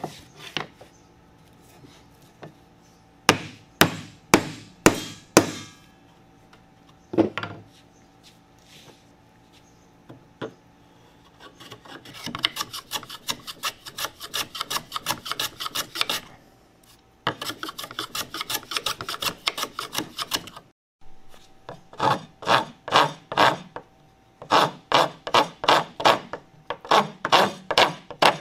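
A bench holdfast is knocked down with a few sharp hammer blows. Then the wooden edge of a ping pong paddle is shaved with a spokeshave in quick scraping strokes, and its walnut burl handle is filed with even rasping strokes, about two a second.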